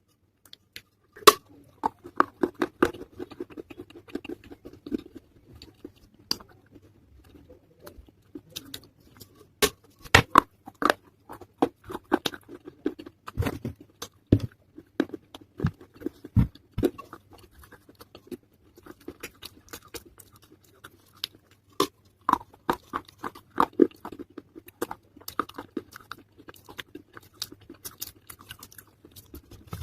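Close-miked crunching and chewing of wet pieces of a baked clay pot (matka): irregular sharp crunches in clusters, with a couple of quieter pauses.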